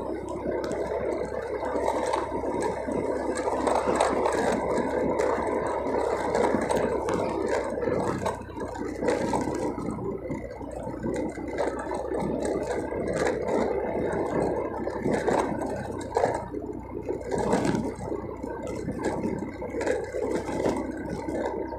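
Motorcycle riding along a paving-block road: the engine runs steadily under the noise of the tyres on the blocks, with a constant irregular rattle and clatter as the bike jolts over the uneven surface.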